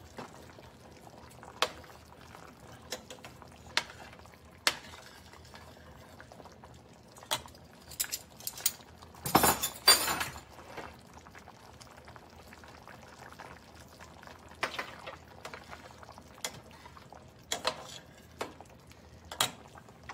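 Thick yogurt and potato curry simmering in a steel pan, with scattered pops of bubbles, and a metal slotted spatula scraping and clinking through it for about a second around the middle.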